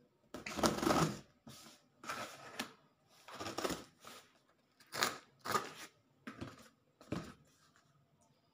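A cardboard shipping box being cut and torn open by hand with scissors: a series of short, irregular rips and scrapes of cardboard and packing tape, fading off near the end.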